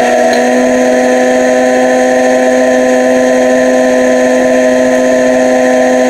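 Black+Decker countertop blender running loud and steady at one constant speed, blending a thin tomatillo salsa.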